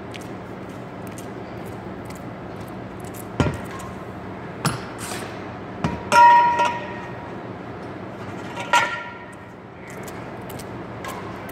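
Badminton rackets hitting a shuttlecock in a rally: sharp hits about a second apart. Two short, ringing squeaks come about six and about nine seconds in, the first the loudest sound here.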